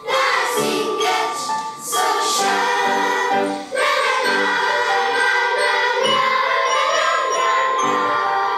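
Children's choir singing, accompanied by xylophones or similar mallet instruments, with long held notes in the second half.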